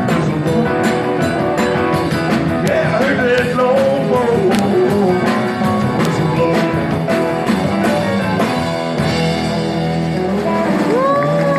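Live rock and roll band playing the instrumental close of a song over a steady beat, ending on a held chord about nine seconds in.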